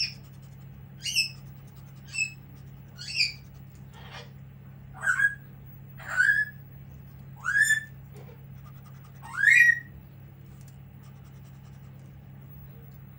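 Pet parrot screeching: about nine short, shrill, rising calls roughly a second apart. The last ones are the loudest, and the calls stop about ten seconds in.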